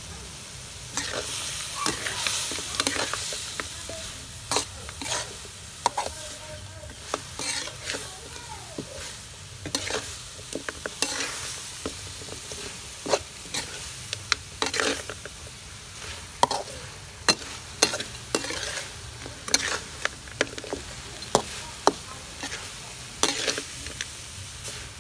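Chicken and lemongrass stir-frying in a large metal wok: a steady sizzle, with frequent irregular scrapes and clanks of a metal spatula against the pan as the meat is tossed.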